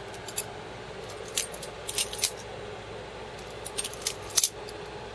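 Metal clicks and clinks of a Flick butterfly knife (balisong) being opened and flipped by hand, its handles and latch knocking together in scattered clusters. The pinned pivots are loose and wobbly, with a lot of play.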